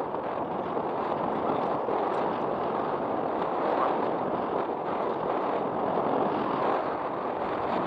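Steady wind rushing over the microphone while riding an electric bike: a dense, even noise with no clear tones.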